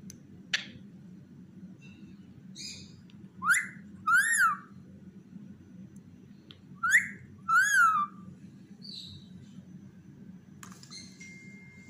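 Yellow rubber squeaky toy squeezed and released, giving a two-note squeak twice, about three and a half and seven seconds in, with a few faint clicks between.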